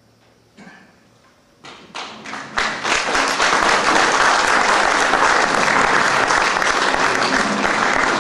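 Theatre audience applause: a few scattered claps begin a couple of seconds in and build within about a second into steady, full applause, marking the end of the act as the stage goes dark.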